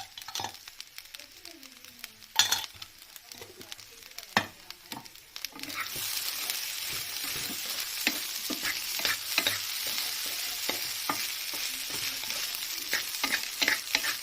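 Egg fried rice sizzling in a hot pan as it is stir-fried, a spatula scraping and clicking against the pan. A few sharp knocks come first, then the sizzle rises about six seconds in and carries on steadily.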